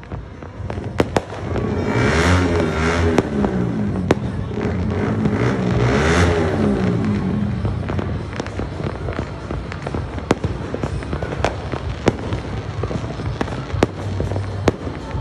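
Fireworks and firecrackers going off across the neighbourhood: sharp bangs and pops scattered all through. From about two seconds in to about seven, a louder wavering sound whose pitch rises and falls runs under the bangs.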